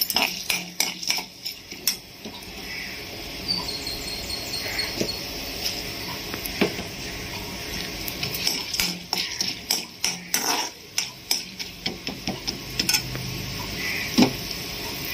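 A perforated steel ladle stirring in a metal kadai, clinking and scraping irregularly against the pan, over a steady sizzle of chana dal, urad dal and cumin frying in hot oil.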